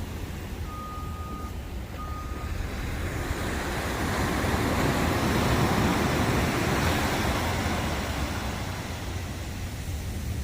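A vehicle passes on the road, its rush of tyre and engine noise swelling to a peak about six seconds in and then fading away, over a steady low rumble. A faint high beep sounds twice in the first few seconds.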